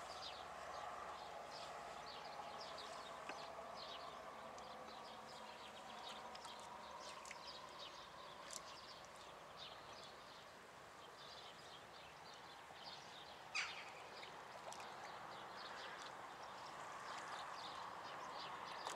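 Small birds chirping over a faint steady outdoor background, with one sharper, louder note about two-thirds of the way through.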